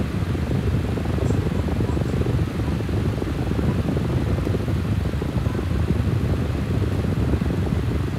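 Steady low rushing noise of moving air buffeting the microphone, with a couple of faint light clicks about a second in.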